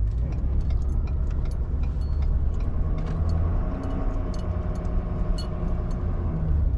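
Truck engine running at low speed as the vehicle creeps along, a steady low drone with scattered light clicks and rattles; the engine note rises and falls a little near the middle.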